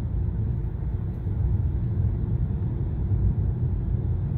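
Steady low road and tyre rumble heard inside the cabin of a 2022 Ford Maverick hybrid pickup cruising at about 40 mph.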